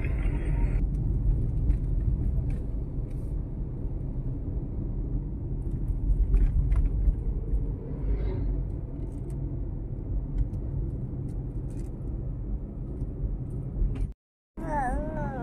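Steady low road and engine rumble heard inside a moving car's cabin. Near the end it cuts off abruptly, and after a brief silence a child's voice begins singing.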